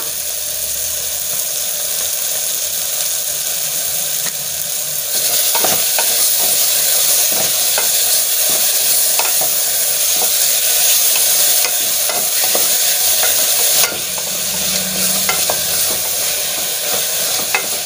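Ginger-garlic paste frying with onions and tomatoes in oil and ghee in a pressure cooker: a steady sizzle, stirred with a spatula that scrapes and knocks against the pot. The sizzle grows louder about five seconds in and drops back a little later on.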